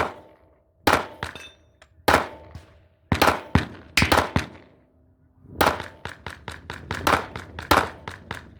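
Glock 9mm pistol firing a long string of rapid shots, fired in quick groups with short pauses between them, each shot sharp with a brief ringing tail.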